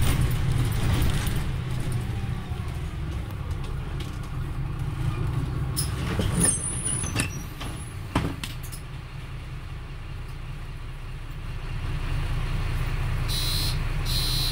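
Mercedes-Benz Conecto LF city bus's OM926LA diesel engine and ZF 6HP502 automatic gearbox heard from inside the passenger cabin: the engine note falls away to a low idle, then picks up again about twelve seconds in. A couple of sharp knocks come about six and eight seconds in.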